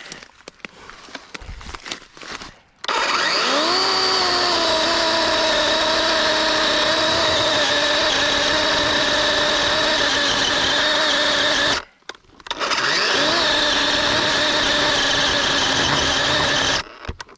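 Battery-powered DeWalt 20 V chainsaw's electric motor spinning up with a rising whine and running steadily. It stops about twelve seconds in and starts up again with the same rise a moment later.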